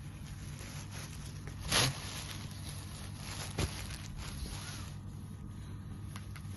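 A short rustle as sarees are handled, about two seconds in, and a light knock a couple of seconds later, over a low steady hum.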